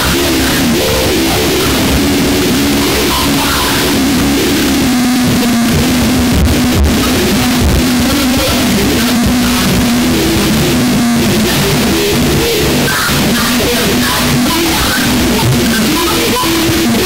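Harsh noise music: a loud, unbroken wall of distorted noise with a low droning tone that keeps jumping between a few pitches.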